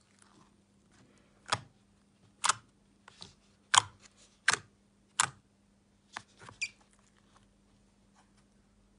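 Fingers poking and pressing into thick white glossy slime, giving a series of sharp pops and clicks, about eight in six seconds at uneven intervals, which die away near the end.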